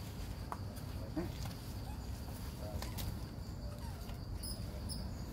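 Forest ambience: insects keep up a steady high-pitched drone over a low rumble, with a few faint short calls and clicks.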